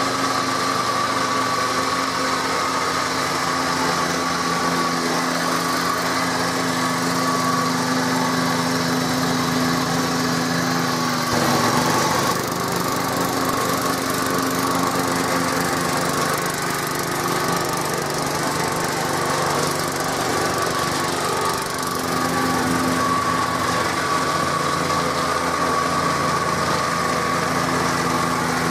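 Single-cylinder Briggs & Stratton 3.5 hp engine on a 1966 Hahn push mower running steadily while cutting grass, its note shifting briefly about twelve seconds in.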